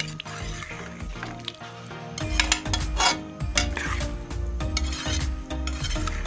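A spatula stirring chunks of potato and cauliflower curry in a metal pot, scraping and knocking against the pot over and over; the stirring gets louder about two seconds in.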